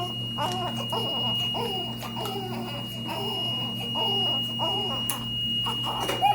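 Infant's noisy breathing with inspiratory stridor from congenital laryngomalacia: short, squeaky, pitched breath sounds repeating every half second or so. A steady high electronic tone runs underneath.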